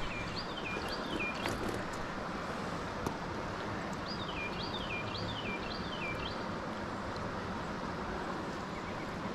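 Steady rush of flowing stream water. A bird sings two series of short falling whistled notes over it, one about a second in and a longer one in the middle.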